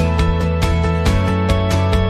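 Background music with a steady, quick beat over held chords and a bass line.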